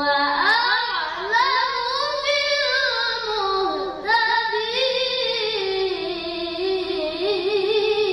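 A boy reciting the Quran in the melodic tilawah style: long ornamented phrases with wavering, gliding held notes, with a short breath about four seconds in before the next phrase.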